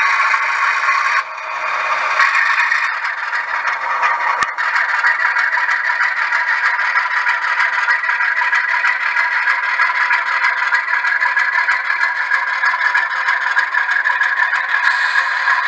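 Model railway diesel locomotive running slowly with its freight cars, a steady rattling, scraping noise, with a single sharp click about four and a half seconds in.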